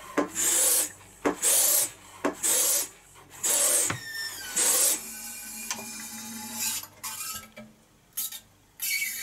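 Hand suction pump drawing petrol out of a small Briggs & Stratton engine's fuel tank: five hissing pump strokes about a second apart, followed by a quieter stretch with a couple of short strokes near the end.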